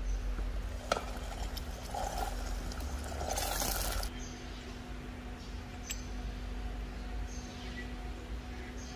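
Red-hot steel lathe-chuck part quenched in a bowl of oil, hardening it: a click, then bubbling and a loud sizzling hiss about three seconds in that cuts off suddenly. Afterwards, faint light clicks of steel parts being handled.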